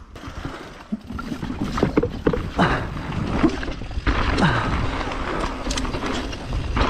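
Mountain bike rolling fast downhill over loose dirt and gravel: tyre noise and wind rush, with frequent knocks and rattles as the bike hits rocks.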